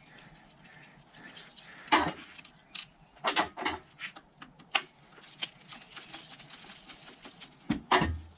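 Sharp metallic clicks and knocks of hand tools on the kickstarter case cover of a Matchless G3L WD motorcycle as the cover's cap is worked off: one loud knock about two seconds in, a run of lighter clicks through the middle, and two loud knocks near the end.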